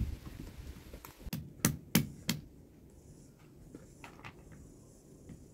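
Four sharp knocks in quick succession about a second and a half in, then a few fainter taps.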